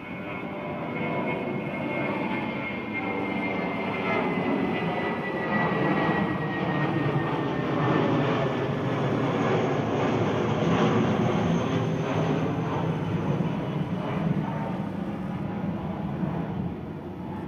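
A propeller or jet aircraft passing overhead. Its engine noise slowly swells to a peak midway and then fades, with a faint whine that gradually drops in pitch.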